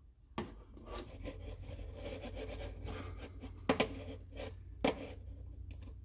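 Handling noise: hands rubbing and shuffling, with three sharp clicks, over a low steady hum.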